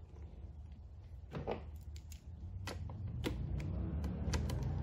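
Small metal clicks and taps from nuts being started by hand onto mounting studs and handled against the parts, a few sharp clicks spaced irregularly over a steady low hum.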